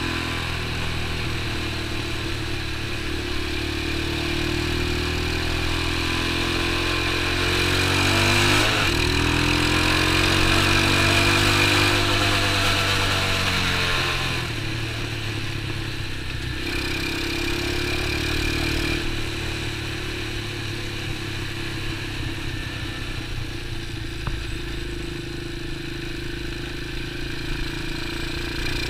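X19 super pocket bike's small engine running while riding. It revs up about a third of the way in, getting louder and higher, then eases back a few seconds later and runs on at a steadier pitch.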